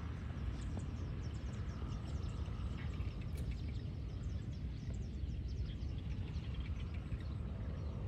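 Outdoor ambience: a steady low rumble with many short, high, falling chirps of small birds calling throughout.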